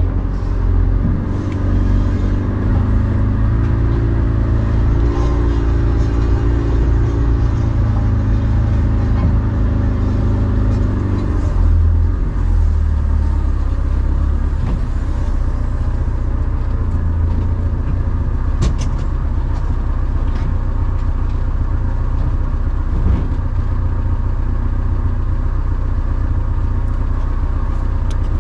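Engine of a karakat all-terrain vehicle running with a steady low drone. Its note shifts over roughly the first ten seconds and then settles.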